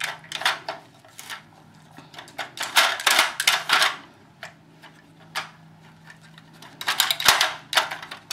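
Plastic treat-puzzle toy rattling and clattering on the floor as a small dog noses and pushes its sliding pieces to get at the kibble and treats inside. Irregular clicks and scrapes, with louder flurries about three seconds in and near the end.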